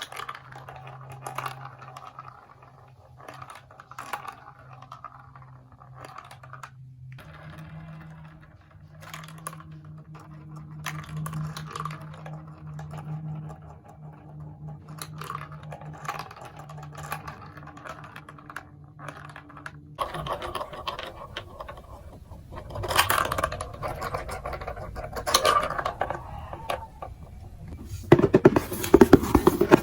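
Plastic marble run building-block pieces being handled, with irregular light clicks and taps over a steady low hum. The background changes about two-thirds of the way in, and near the end the clicking turns into a louder, rapid rattle.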